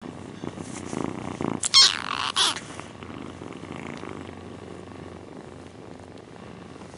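Domestic cat purring steadily, with two short, louder high-pitched cries about two seconds in.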